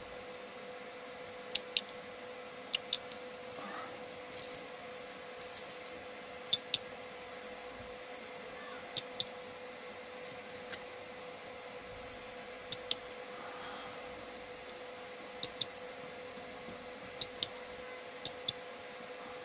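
Push button and 12-volt relays clicking as the button is pressed and released to latch the circuit on and off. The clicks come as eight sharp pairs, the two clicks of each pair about a fifth of a second apart, spaced a second to a few seconds apart, over a faint steady hum.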